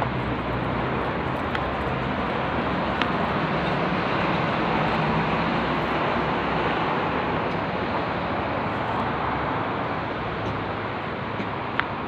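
Steady city street traffic noise, an even rushing hum, with a single sharp click near the end.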